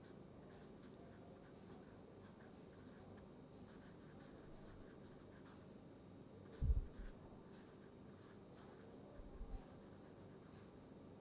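Felt-tip marker writing on paper: faint, quick scratchy strokes as a line of handwriting is written out. A soft low thump about six and a half seconds in.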